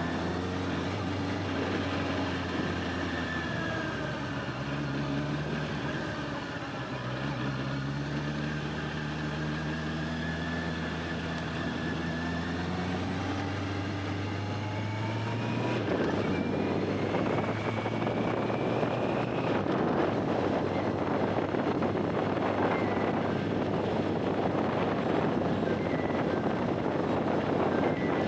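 Honda CBR650R's inline-four engine pulling through the gears, its pitch rising and dropping with each shift. From about halfway on, a louder rush of wind noise takes over and the engine is barely heard.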